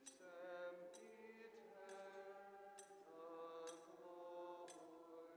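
Quiet, slow sung chant, voices holding long notes that change pitch gently, with a soft accent from a struck or plucked accompaniment about once a second.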